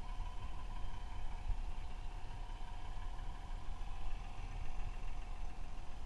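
Garden-railway model diesel locomotive running along the track with a log wagon: a steady motor whine over a low rumble.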